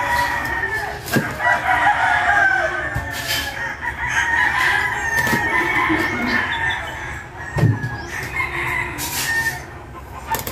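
A rooster crowing and chickens clucking, with several sharp knocks of a cleaver on a wooden chopping board, the heaviest about three quarters of the way through.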